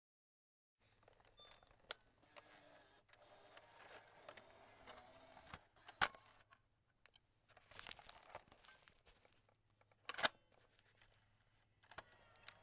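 Cassette tape player's eject mechanism: a few sharp plastic clicks and clacks, roughly four seconds apart, the last one doubled, with softer mechanical rattles between them.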